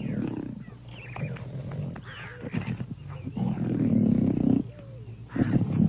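Leopards snarling and growling in a fight over a kill, a young male turning on his family. The sound comes in several harsh bursts, the longest and loudest about three and a half to four and a half seconds in, with another near the end.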